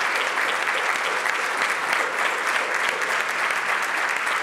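Banquet audience applauding steadily, many hands clapping at once.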